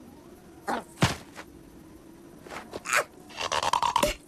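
Cartoon sound effects for a lizard's slapstick tumble: a few quick swishes and knocks, with a sharp hit about a second in and a rattling, scraping stretch near the end.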